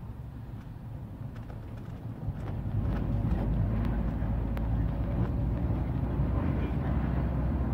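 A motor vehicle running on the road, heard from on board: a steady engine hum with road and wind noise that grows louder about two and a half seconds in.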